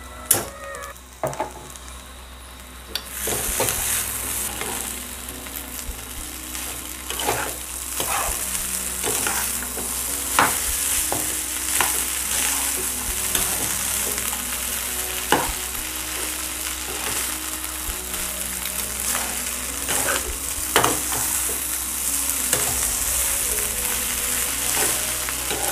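Rice frying in a pan with a steady sizzle that begins about three seconds in. It is stirred and tossed with a perforated metal spatula that scrapes and knocks against the pan now and then.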